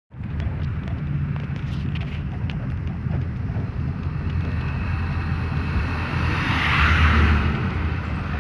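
Inside a moving bus: steady low engine and road rumble, with a few sharp rattles in the first three seconds and a louder hissing rush about seven seconds in.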